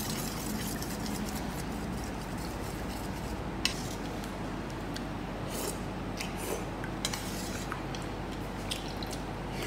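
Metal spoon scraping and clinking against a ceramic bowl while stirring and scooping a soft mixture, with a few sharp clicks scattered through the second half, over a steady background hiss.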